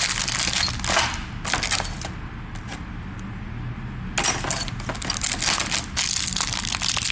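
Small metal parts of a new door knob and lock hardware set clinking and rattling as they are handled. There are two spells of clatter with a quieter pause of about two seconds between them.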